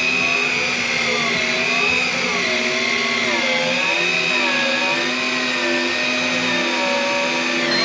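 Electric fishing reel motor whining steadily as it winds in line against a hooked fish from deep water, its pitch stepping and wavering slightly as the load changes.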